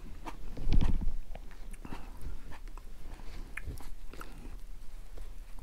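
Hands handling a broken-apart burger over a paper plate: small wet clicks and rustles of bun, patty and lettuce being picked up and pressed together, with one louder low bump a little under a second in.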